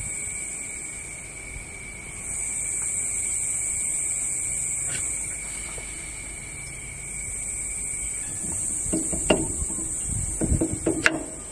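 Steady high-pitched insect chorus with a second, lower steady trill that stops about two-thirds of the way in. A few sharp knocks and clicks come near the end.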